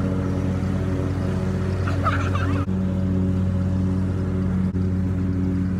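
A steady low motor hum runs throughout, dipping briefly twice. A short high squeal, like a child's voice, comes about two seconds in.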